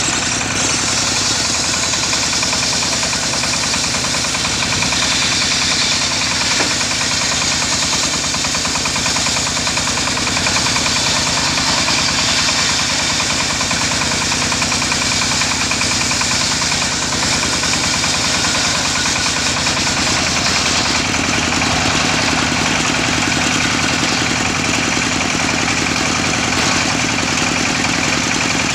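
Single-cylinder stationary diesel engine running steadily under load, belt-driving a homemade table circular saw whose blade rips lengthwise through a teak log, the engine's beat under the hiss of the cut.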